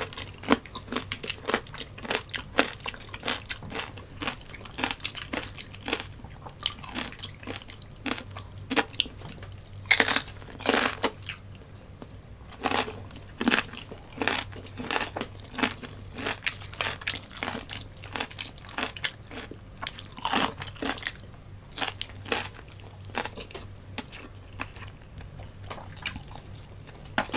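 Close-miked eating: many short crunches and chewing of crispy fried tilapia eaten by hand, with wet mouth sounds between, a few louder crunches about ten and twenty seconds in.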